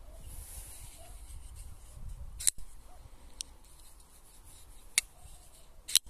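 Folding knife's blade being flicked open and shut, with sharp metallic snaps as it locks or closes: the loudest about two and a half seconds in, a fainter one a second later, and two more near five seconds and at the very end. A low rumble of wind on the microphone underneath.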